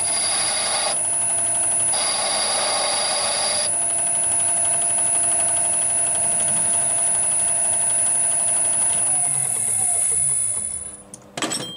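Small metal lathe running with a steady whine while its cutting tool turns an EN16T steel stud, the cut heard as a harsh scraping noise twice, each for a second or two. Near the end the lathe's motor is switched off and winds down, falling in pitch to a stop, followed by a single sharp knock.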